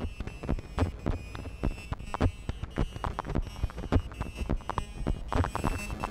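Live electronic music from a modular synthesizer: low thumping pulses about every second and a half, with many short clicks between them over faint steady high tones.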